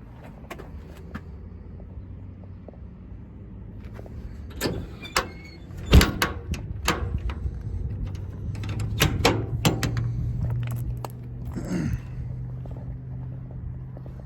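Clicks and thuds of latches and compartment doors being worked on a truck's service body, with one loud bang about six seconds in, over a steady low hum.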